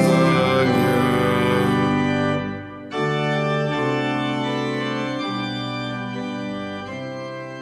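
Organ playing the instrumental close of a hymn in long held chords, with no singing. The sound dips briefly about two and a half seconds in, then a new chord comes in and slowly fades.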